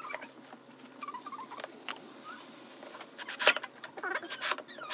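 Small scratching sounds, then a quick run of loud clicks and clatters about three seconds in, as a white plastic hinge bracket is handled and screwed onto a particleboard cabinet door with a cordless drill-driver.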